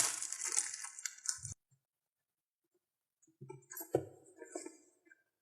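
Rustling of parcel packaging being opened for about a second and a half, then, after a pause, a few light knocks and clinks of items being handled.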